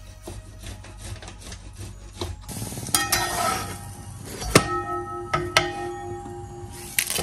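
Metal kitchenware being knocked, four sharp knocks each ringing on briefly, with some rustling in between.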